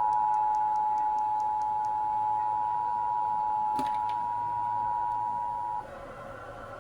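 Emergency Alert System attention signal: two steady tones sounding together, cutting off suddenly near the end, with a brief click about halfway through. The tone announces an incoming emergency alert, here a fake one.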